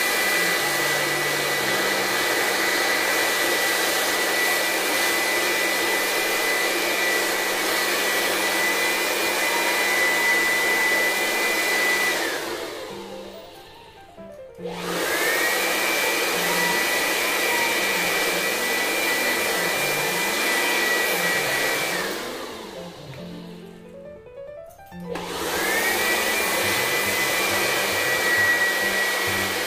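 Electric blower running as it blows dust out of a CPU heatsink: a steady rush of air with a high whine. It is let off twice, about twelve and twenty-two seconds in, the whine falling as it spins down, and is started again a couple of seconds later each time.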